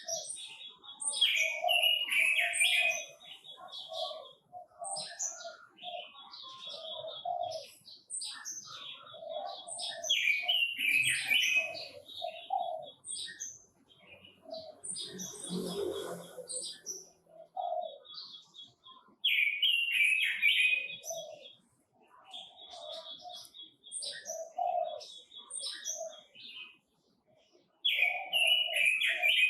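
Red-billed leiothrix (Pekin robin) singing loud, warbling phrases that repeat every few seconds, mixed with steady lower cooing notes.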